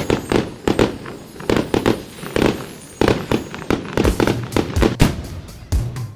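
Fireworks bursting: a rapid, irregular series of bangs and crackles, with some deep thumps, heard together with music.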